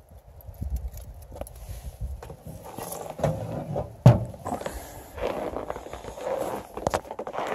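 Metal lid of a Char-Griller barrel charcoal grill shut with a single loud clunk about four seconds in, among smaller knocks and handling rustles; after it come crunching steps in snow.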